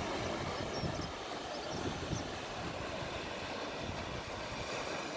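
Outdoor wind rumbling unevenly on the microphone over a steady hiss of surf breaking on the beach below.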